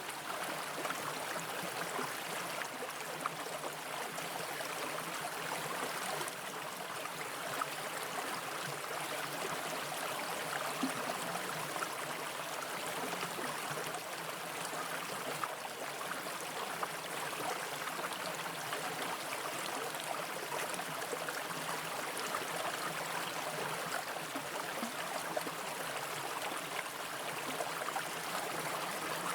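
Mountain brook running steadily over rocks, with a few faint short clicks now and then.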